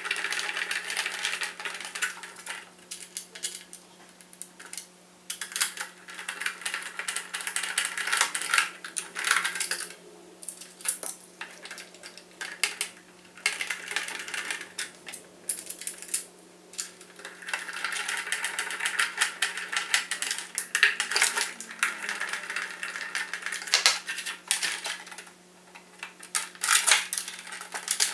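Small hard parts being handled during model assembly: irregular clicking and rattling in clusters, with short pauses between them, over a faint steady low hum.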